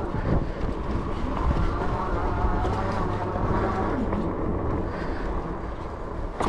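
Fat-tire electric bike riding over a muddy trail: a steady whine from its 750 W electric motor over a rough rumble from the 4-inch tyres on the ground.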